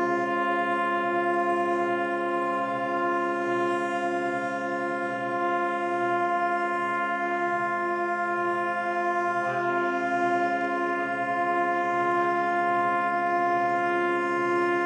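Several ships' horns sounding together in one long, held chord. One of the lower horns drops out about halfway through and comes back in a couple of seconds later.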